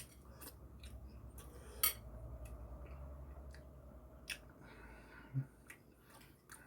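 Cutlery clicking and tapping against a plate in scattered light clicks, the loudest about two seconds in.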